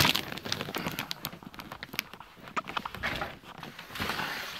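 Footsteps with irregular rustling and knocking handling noise as a gift-wrapped box is carried.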